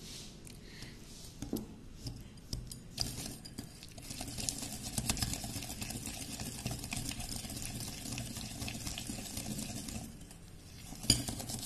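Wire whisk beating softened butter, brown sugar and jaggery powder in a glass bowl: rapid, continuous scraping and clicking of the wires against the glass, getting going a few seconds in, with a brief pause near the end.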